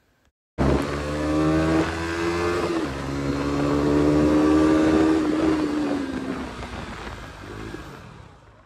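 Motorcycle engine running hard at speed under the rider, with wind rushing over the microphone. Its pitch drops sharply once about three seconds in, then holds steady and slowly sinks as the sound fades out near the end.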